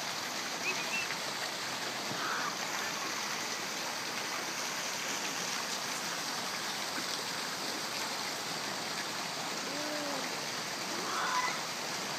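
Steady rushing and splashing of a small waterfall pouring into a pool, with a few faint, brief sounds over it.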